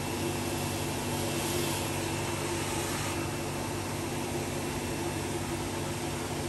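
LaserWash touchless automatic car wash running, a steady machine hum under the hiss of water spray; the hiss grows brighter for a moment about two seconds in.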